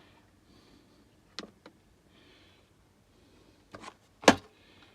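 A few short clicks and taps, twice in pairs and loudest once near the end, from a digital radio's buttons being pressed while the radio stays silent: its volume does not work.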